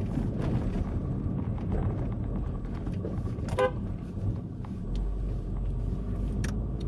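Engine and road noise of a small car driving, heard inside its cabin, with one short car-horn toot about halfway through.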